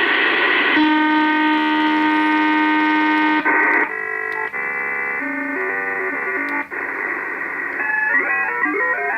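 Unidentified signal on the 10-metre band heard through a shortwave receiver's speaker: clusters of steady electronic tones that switch abruptly every half second or so. From about eight seconds in, the tones turn into repeated rising stepped sweeps. The uploader takes it for a jammer.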